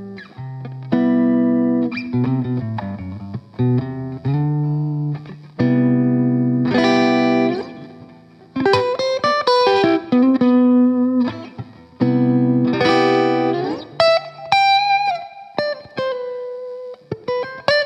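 Electric guitar played through a Boss BD-2 Blues Driver overdrive pedal: chords picked and left to ring one after another, with a short phrase of single notes near the end.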